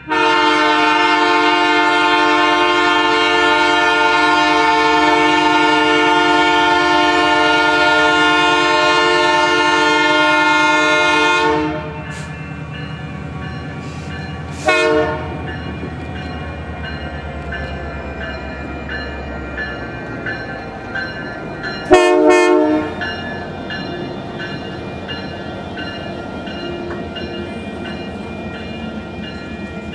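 Diesel locomotive air horn sounding one long, loud chord of several tones for about twelve seconds, then two short blasts, about fifteen and about twenty-two seconds in, as the train approaches a grade crossing. The train's rumble continues underneath.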